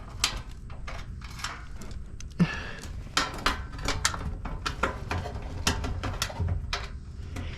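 Irregular clicks and light knocks of hand tools and bolts being worked while a fender is bolted onto a car, over a low steady hum.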